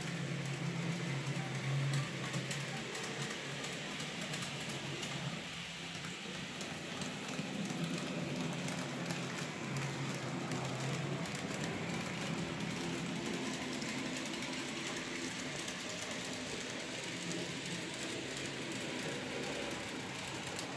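N-gauge model trains running on the layout: a steady small-motor hum that swells and fades, with fast fine clicking of the wheels on the track.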